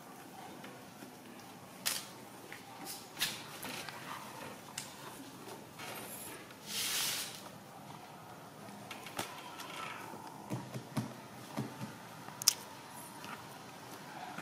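Scattered light clicks and taps, a few soft knocks, and a brief rustle about seven seconds in.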